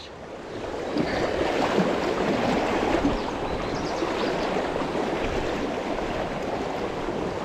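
Fast, high river water rushing steadily, swelling up over the first second.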